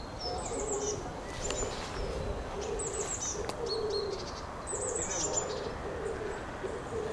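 Woodland birdsong: a low, repeated cooing call under many short, high, chirping and down-slurred notes from songbirds.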